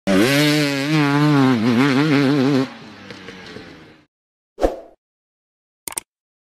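Motorcycle engine revving, its pitch rising and falling rapidly for nearly three seconds, then cut off sharply and fading away. A single sharp hit and a couple of short clicks follow.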